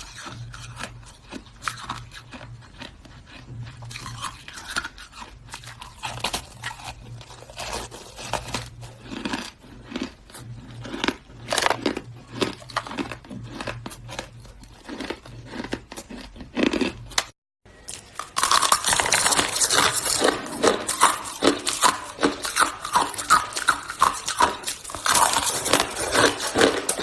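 Hard shaved ice being bitten and chewed: a dense run of crisp, irregular crunches. About 17 seconds in the sound cuts out for a moment, then the crunching comes back louder and denser.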